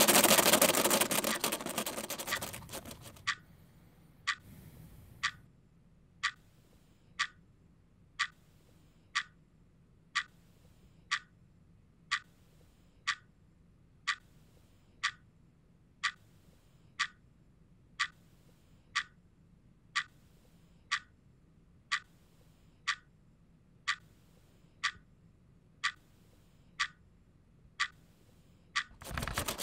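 A loud rushing noise fades out over the first three seconds, then a clock ticks steadily, about once a second.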